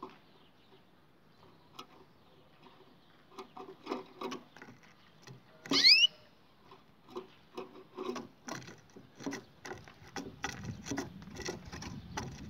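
White canary hopping about its wooden cage: irregular light taps and clicks of its feet on the perches and cage floor, getting busier toward the end, with one short, loud rising chirp about six seconds in.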